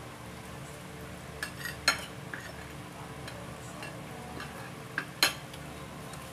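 Metal fork and spoon clinking against a plate several times, with the sharpest clinks about two seconds in and a pair about five seconds in, over a steady low hum.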